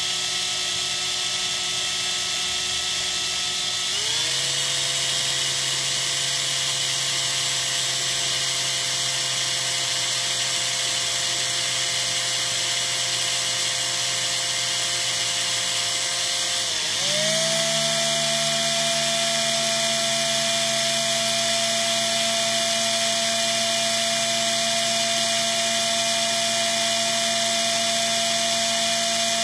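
Small electric drill running steadily, its motor pitch stepping up about four seconds in and again, after a brief dip, around seventeen seconds in, while it drills out the rivet post of a small diecast car's base.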